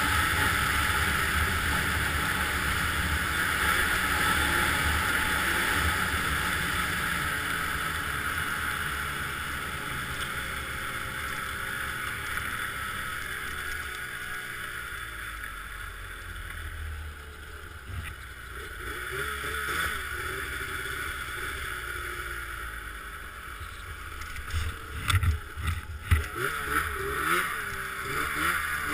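Snowmobile engine and track running steadily beneath the rider, louder at first and easing off from about halfway through. There are a few sharp knocks near the end.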